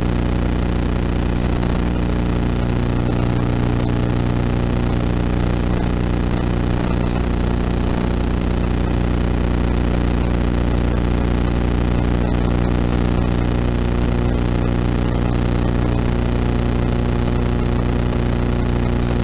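Steady electrical buzz with a low, even hum, picked up by the onboard FPV camera's audio; it holds constant in pitch and level throughout.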